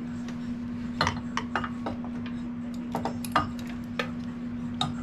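Scattered light metallic clicks and taps of hand tools and carburetor parts being worked into place on a motorcycle, in two short clusters with a last click near the end. A steady low hum runs underneath.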